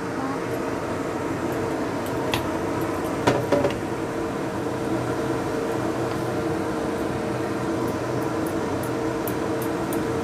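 Stir-frying in a wok: a spatula tossing rice vermicelli with shredded cabbage and carrot, clacking against the pan a few times around two and three and a half seconds in, over a steady mechanical hum.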